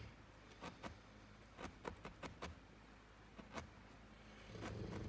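Barbed felting needle stabbing into a wad of wool on a felting pad: faint, quick ticks, about three a second, with short pauses.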